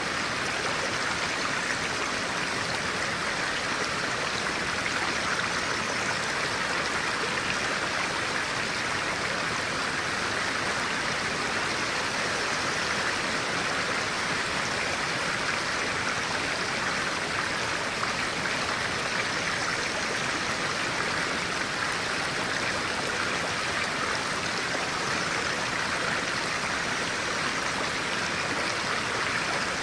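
Clear-water stream flowing, a steady, unchanging rush of water.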